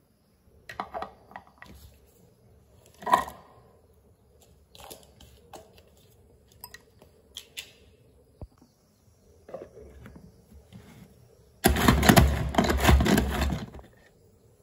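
Manual pull-string vegetable chopper, a red plastic bowl with spinning blades, chopping onion and capsicum: a dense rapid rattling whirr for about two seconds near the end. Before it, scattered light plastic clicks and knocks, one sharper about three seconds in, as the blade and vegetables go into the bowl and the lid is fitted.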